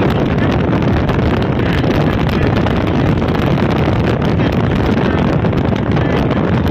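Steady wind rushing over the microphone together with the road and engine noise of a moving vehicle travelling at speed.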